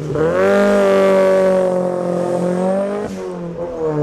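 Toyota Celica GT-Four ST205's turbocharged 3S-GTE four-cylinder through a decatted Blitz Nür-Spec 3-inch exhaust, accelerating hard from a standstill. The engine pitch climbs quickly, holds high, then drops at an upshift about three seconds in, getting quieter as the car pulls away.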